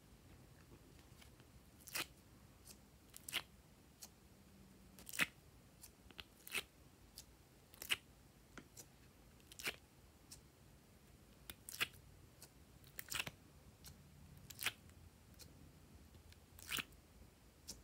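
Soft slime popping out of a silicone honeycomb mold one cell at a time, a short crisp pop or crackle roughly every one to two seconds, about a dozen in all.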